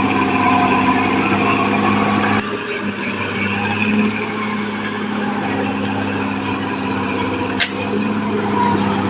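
Caterpillar D6R XL bulldozer's diesel engine running steadily. It drops abruptly in level about two and a half seconds in, and a short click comes near the end.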